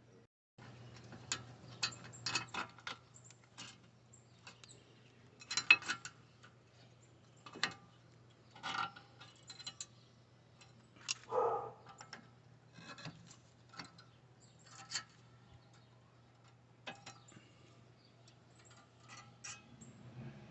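Irregular metallic clicks and knocks of parts being handled or moved, some sharp and some duller, over a faint steady hum.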